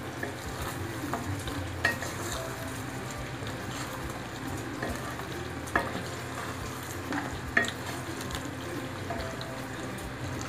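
Thick chicken gravy sizzling in a nonstick kadai as a spatula stirs ghee and garam masala into it, scraping through the pan with a few sharp taps of the spatula against the pan.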